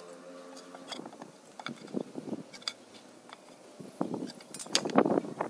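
Metal marking tools, an aluminium square and a steel ruler, clicking and scraping against a wooden board and each other as they are set and shifted to mark a line, with the loudest clatter near the end.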